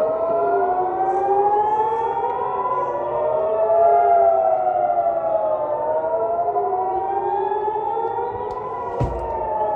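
Several air raid sirens wailing at once, each slowly rising and falling in pitch out of step with the others: the warning of incoming rockets. A brief low thump near the end.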